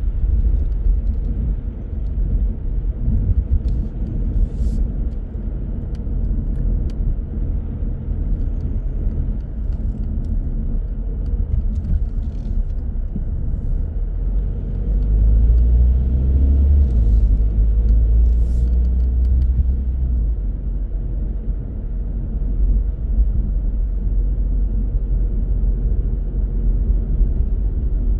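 A car driving on city roads: a steady low rumble of engine and tyres, which swells for a few seconds about halfway through.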